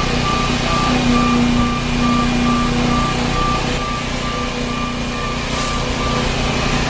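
Truck backup alarm beeping steadily, a little over two beeps a second, over the steady hum of the truck's engine as it reverses. A brief high hiss comes about five and a half seconds in.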